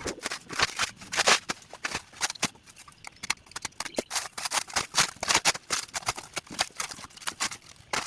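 Plastic packaging being pulled and crumpled off a boxed machine: dense, irregular crinkling and crackling.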